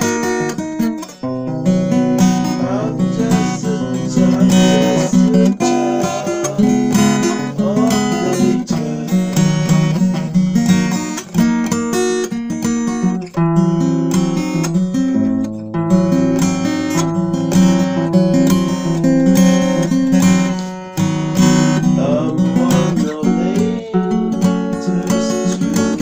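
Acoustic guitar music: chords strummed and notes plucked in a continuous flowing passage.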